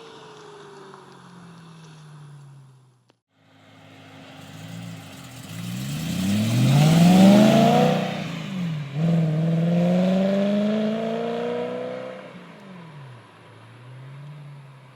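BMW E9X M3's V8 through its exhaust under hard acceleration. A falling note cuts out about three seconds in; then the engine pulls with rising pitch, changes gear about nine seconds in, pulls again and falls away as the throttle closes near the end.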